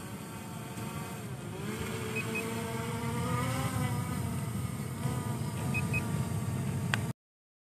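Quadcopter drone's propellers buzzing in flight, their pitch dipping and rising as it descends, with a short double beep twice. The sound cuts off abruptly near the end.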